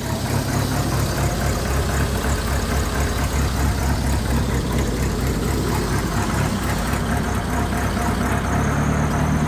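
1952 Nuffield tractor engine idling steadily, with an even, rapid chugging beat.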